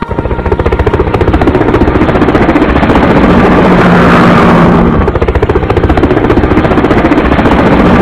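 Helicopter sound effect: rapid, steady rotor chopping over a low engine drone, loud and unbroken.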